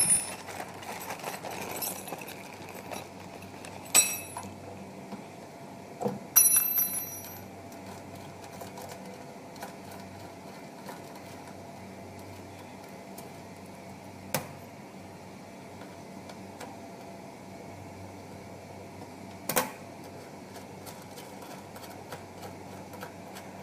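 Metal clinks and clicks of screws and an Allen key against a stainless steel machine housing as the side screws are taken out: about half a dozen sharp taps, two of them ringing briefly in the first eight seconds, then sparser clicks over a steady faint hum.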